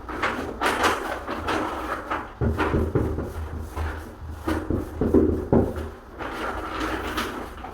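Irregular knocks and scrapes of door-fitting work, a wooden door part being handled and shifted into place.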